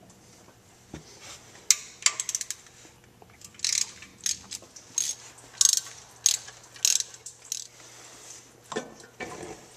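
Ratchet wrench clicking in a series of short bursts as the 10 mm bolts holding the water pump are loosened, with light metallic clinks of tool and bolts.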